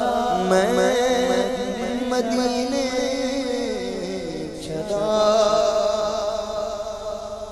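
Wordless naat singing by a male voice: long held notes that slide down about four seconds in, then a new note held from about five seconds in, fading near the end.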